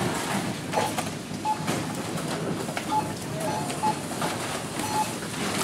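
Supermarket checkout barcode scanner beeping as items are passed over it: about six short single beeps, irregularly spaced, over a steady background hiss.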